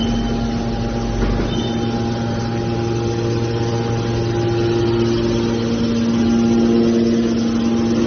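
Hydraulic scrap metal baler's power unit running: the electric motor and hydraulic pump hum steadily, with added tones joining about three seconds in as the load shifts.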